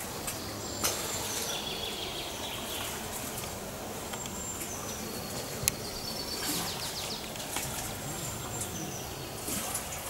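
Outdoor summer ambience: a steady background hiss with short, high bird calls several times over. There are two sharp clicks, about one second and about six seconds in.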